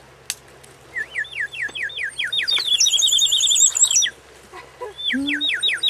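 Wet wood in a campfire whistling as steam escapes: a fast run of rising, bird-like chirps, about seven a second. It stops for about a second, then starts again near the end.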